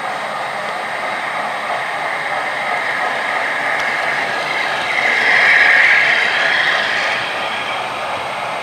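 Model diesel locomotives and cars running past on layout track, a steady noise that swells as the train passes close, about five to seven seconds in, then eases off.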